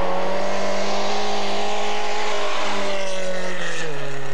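Rally car engine running hard at a steady high pitch, then dropping abruptly to a lower pitch a little under four seconds in.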